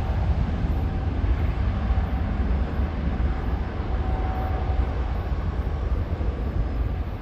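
Jet engines of a departing Thai Airways widebody airliner on its takeoff roll: a steady deep rumble with a faint whine coming and going.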